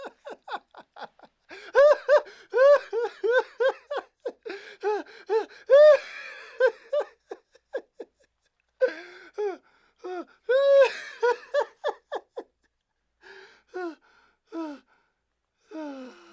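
A man laughing heartily in several bouts of quick rhythmic ha-ha-ha syllables, with short gaps and gasping breaths between them, tailing off into quieter chuckles near the end.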